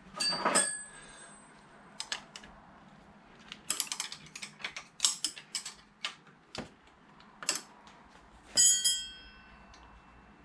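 Metal hand tools clicking and clinking as a socket wrench works on the motorcycle's bottom-yoke fork pinch bolts: a run of irregular sharp clicks in the middle, and two louder ringing metallic clinks, one at the start and one near the end.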